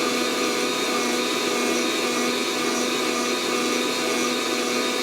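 Fresh Roast SR 800 hot-air coffee roaster running mid-roast: its fan blows a steady whoosh of hot air through the roasting chamber, with a constant motor hum. The beans have not yet reached first crack.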